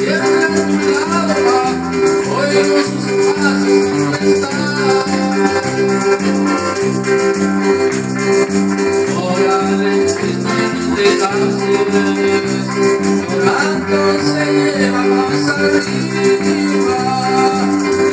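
Live worship music amplified through PA speakers: electronic keyboard chords and electric guitar accompany a man singing into a microphone.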